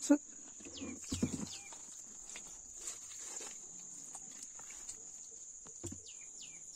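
Steady high chirring of night insects, with a few short falling chirps over it. Two soft, brief sloshing thuds, about a second in and near the end, come from a thick beaten-egg mix being poured into a plastic drum of chopped leaves.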